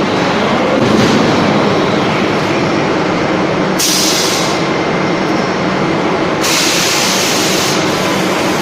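Forging production line machinery running with a steady, loud mechanical din and hum, broken by two bursts of hissing, one about four seconds in and a longer one from about six and a half seconds.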